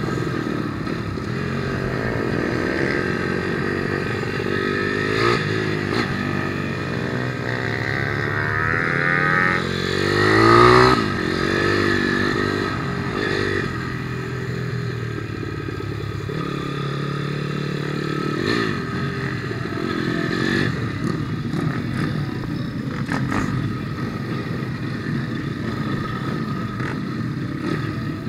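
160cc pit bike's single-cylinder four-stroke engine heard from onboard, revving up and down repeatedly as the rider accelerates and shifts. Its pitch rises and falls throughout, with the loudest rise about ten seconds in.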